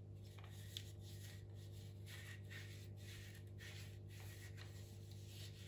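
Damp cloth rubbing around the rim and inside of a Dyson V15 vacuum's plastic dust bin in several soft, irregular wiping strokes, faint over a low steady hum.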